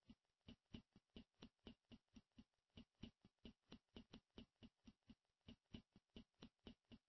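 Near silence with a faint, rapid ticking, about four ticks a second.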